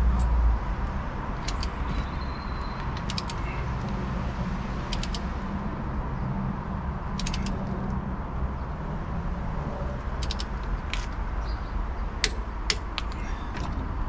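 A ratcheting wrench clicking in short sets of two to four clicks, one set every second or two, as suspension bolts are done up and torqued. A low vehicle rumble fades out about a second in.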